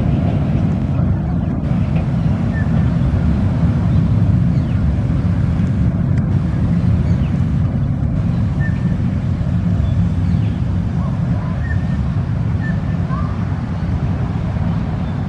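Steady low rumble of a narrow-gauge sugar cane train's carriages rolling past on the track, easing a little toward the end as they move away, with a few short bird chirps over it.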